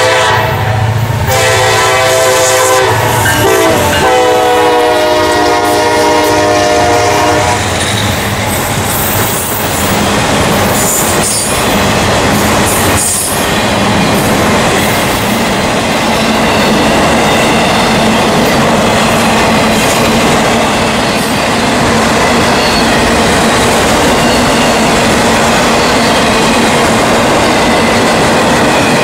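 Diesel freight locomotive horn blowing at a grade crossing: a short break, then a long blast that shifts down in pitch as the locomotives pass, ending about seven seconds in. After that the train's autorack cars roll by with steady wheel noise and clickety-clack.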